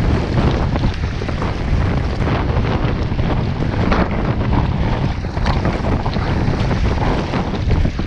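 Loud wind buffeting the microphone, with choppy waves splashing against a kayak.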